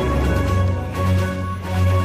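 Background music with held notes over a deep bass line and a steady beat.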